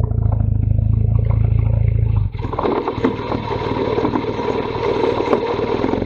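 BMW R1200 GS Adventure's flat-twin engine running off-road. About two seconds in, the deep steady drone cuts off suddenly and a rougher, clattery engine sound takes over.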